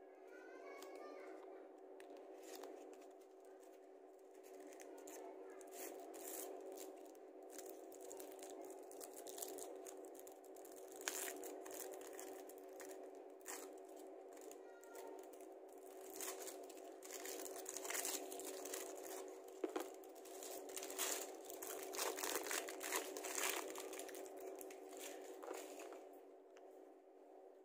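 A chocolate bar's wrapper being torn open and peeled off by hand, crinkling and crackling in irregular bursts that are loudest in the second half. A steady low hum runs underneath.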